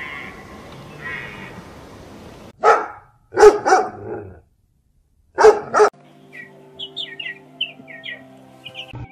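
Puppy barking: several sharp barks in two bunches, about three and five and a half seconds in. Near the end a chick peeps in a run of short high chirps, over background music.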